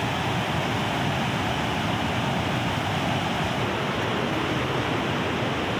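Steady rushing of a fast mountain river's white-water rapids over boulders.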